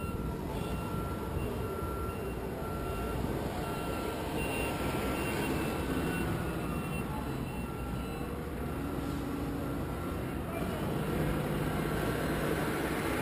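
Vehicle reversing alarm beeping in short, evenly spaced pulses over a steady low engine rumble.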